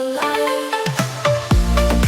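Instrumental electronic dance music with a steady beat and sustained chords. The bass and kick drum drop out for about the first second, then come back in.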